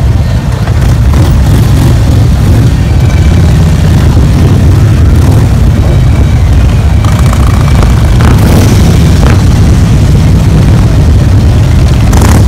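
A procession of large touring motorcycles and trikes riding past, their engines making a loud, steady low rumble.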